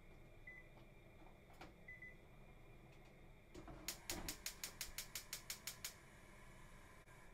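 Gas hob burner being lit: the spark igniter clicks rapidly, about six sharp clicks a second for two seconds, then stops.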